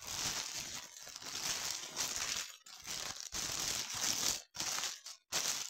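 Plastic packaging crinkling and rustling as it is handled, on and off with several short pauses.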